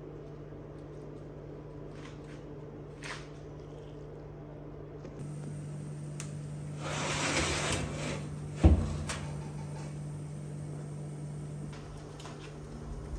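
A baking tray slid into an oven with a scrape, then the oven door shut with one sharp thud, over a steady low hum.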